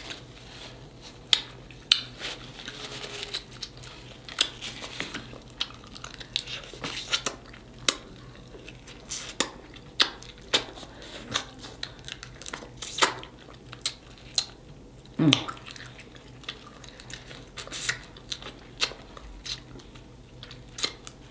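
Snow crab legs and knuckles being cracked and eaten up close: irregular sharp shell cracks and snaps mixed with chewing.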